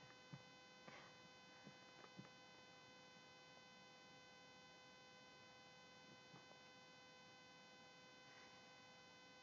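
Near silence: a faint, steady electrical hum made of several evenly spaced tones, with a few faint taps in the first couple of seconds.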